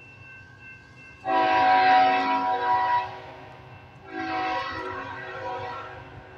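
Diesel locomotive air horn on a CPKC grain train approaching a grade crossing, sounding two long blasts of a chord of several notes, the first the loudest, part of the long-long-short-long crossing signal.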